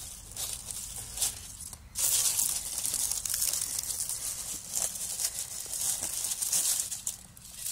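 Dry oak leaves rustling and crinkling as a gloved hand stirs through them, uneven and getting louder about two seconds in.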